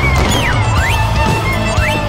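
Loud music playing over a fireworks display, with a sharp bang right at the start and sliding whistle-like tones that fall and rise in pitch.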